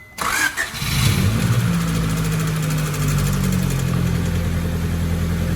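Honda B16A 1.6-litre four-cylinder engine in a Civic starting up with a sudden burst of noise, then settling within about a second into a steady idle.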